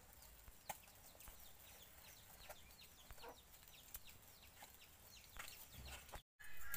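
Faint chickens clucking and peeping, with short falling chirps repeating a few times a second and a few light clicks. The sound drops out briefly near the end.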